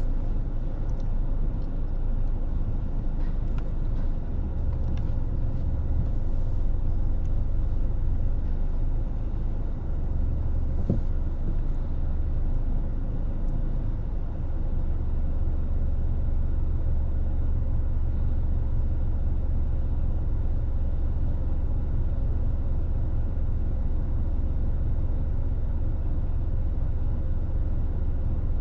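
Steady low rumble of a car driving on city streets: engine and road noise with no pauses.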